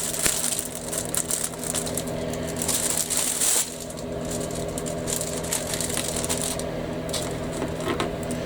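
Crinkling and rustling of a plastic model kit and its parts being handled, loudest near the start and again around three seconds in, with a few sharp clicks, over a steady hum.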